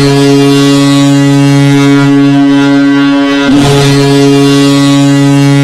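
Goal horn blasting, loud and steady, several notes sounding together. It breaks off briefly about three and a half seconds in and sounds again.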